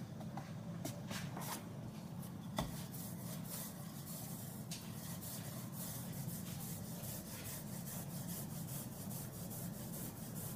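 A hand sweeping flour across a wooden pastry board, then a wooden rolling pin rolling out pie-crust dough on the board: soft, even rubbing with faint light clicks.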